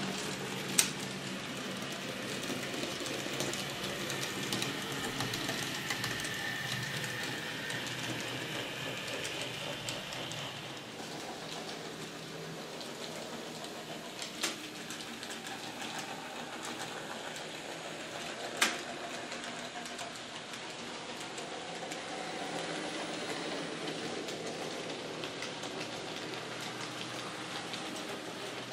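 Model trains running on a layout: a steady whirring rattle of small motors and wheels on the track, broken by three sharp clicks, one about a second in and two more past the halfway point.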